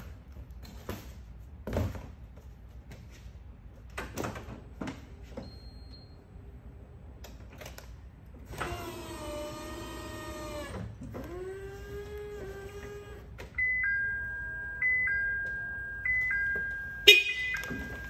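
Forklift at work: scattered knocks and clatter, then a motor whine that rises, holds for about two seconds and falls away as the load is lifted, a shorter whine after it, and from about two-thirds of the way in a two-tone electronic warning chime repeating about once a second.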